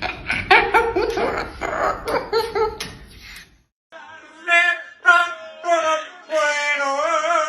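Choppy laughing or chattering voice sounds, then, after a short break, a warbling sung melody with a strong vibrato.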